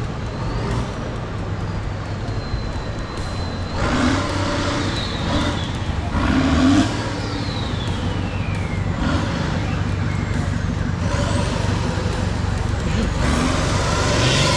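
Off-road 4x4 race trucks' engines running in the mud, rising in louder surges about four and six and a half seconds in.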